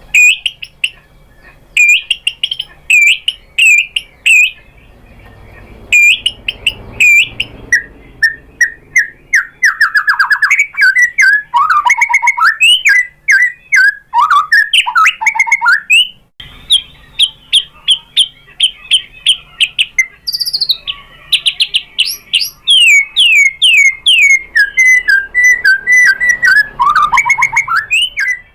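White-rumped shama (murai batu) singing a loud, varied song: short clear whistled notes repeated in groups, then long fast runs of rapid notes sweeping down in pitch.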